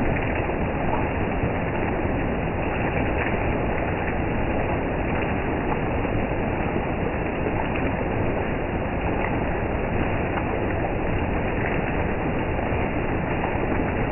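Heavy rain pouring steadily onto trees and broad-leaved undergrowth, an even, unbroken rushing noise.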